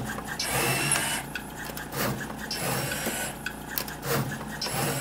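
DDM Novastar LS60V pick-and-place machine running a placement job: its belt-driven gantry motors whir as the placement head shuttles over the circuit board, in a cycle of quick moves that comes round about once a second.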